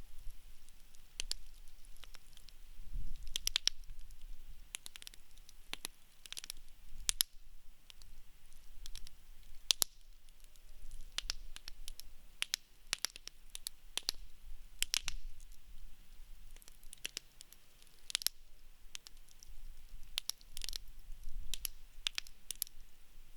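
Wood campfire burning, with irregular sharp crackles and pops over a low, soft rumble of flames.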